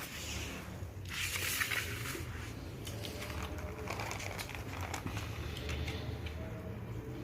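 Close-up eating sounds: wet chewing and small mouth and food clicks, with a brief crinkly burst of noise about a second in.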